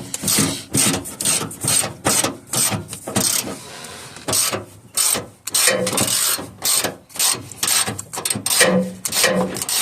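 Hand ratchet clicking in quick back-and-forth strokes, about two a second, as a bolt is worked loose, with a short pause a little past three seconds in.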